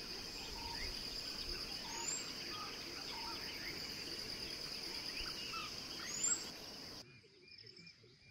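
Forest ambience: a steady, pulsing insect trill with many short bird chirps and two rising whistled bird notes. About seven seconds in it cuts to a quieter scene with fainter bird calls.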